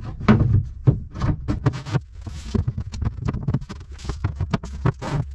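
Wooden sliding door panels being handled and set back into their tracks: a run of irregular knocks and bumps of wood on wood, over a low steady hum.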